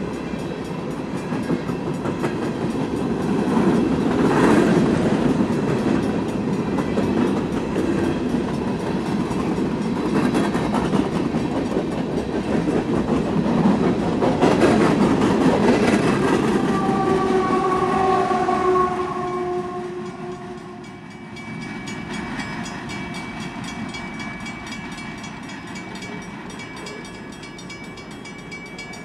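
Union Pacific coal train's cars rolling past close by: a steady rumble and clatter of steel wheels on the rails. Toward the end of the passage a horn sounds for about three seconds with a slowly falling pitch. The sound then drops to a quieter, more distant train rumble.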